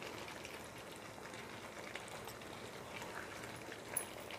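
Thick beef stew simmering faintly in a pan, with soft bubbling crackles as a spoon is stirred through it, and a single light knock of the spoon near the end.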